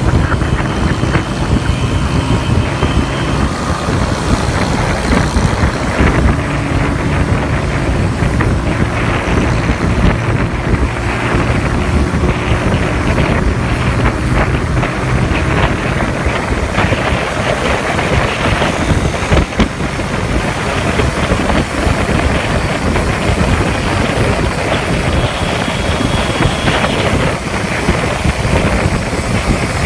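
Qingqi motorcycle rickshaw's small single-cylinder engine running steadily, with heavy wind noise on the microphone.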